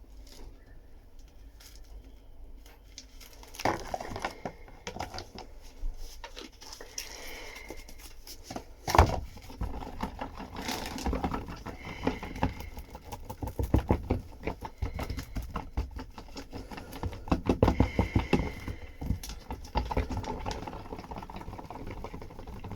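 Polyester resin being stirred with catalyst in a mixing pot: quick, irregular scraping and clicking against the sides and bottom, with a sharp knock about nine seconds in.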